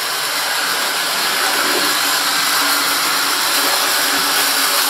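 00 gauge model locomotive running round the layout with its coaches: a steady whirring hiss of motor and wheels on track, rising a little in level over the first seconds.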